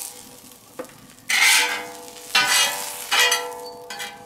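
Metal spatula scraping across a steel fire plate in three strokes about a second apart, each leaving a faint metallic ring, as grilled asparagus is lifted off.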